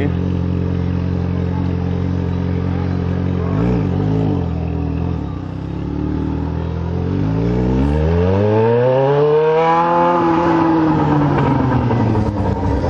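Yamaha XJ6 N motorcycle's inline-four engine idling, with a quick blip of the throttle about four seconds in. In the second half the engine speed rises slowly and then eases back down.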